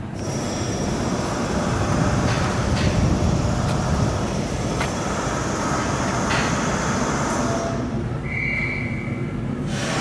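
Electric commuter train running on the nearby line: a steady rumble with a thin high whine that stops about eight seconds in.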